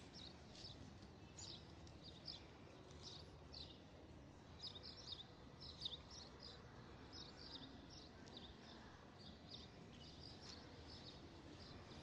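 Faint small birds chirping, many short high chirps coming irregularly over a quiet background hiss.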